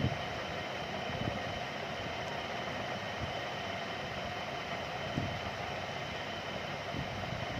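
Steady background hiss and hum, with a few faint low knocks.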